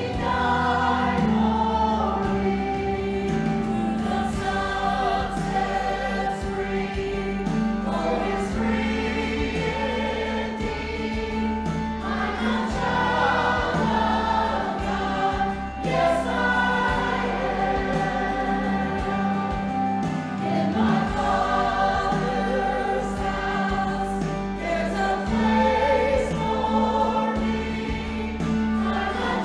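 Church choir singing a worship song over sustained low instrumental notes.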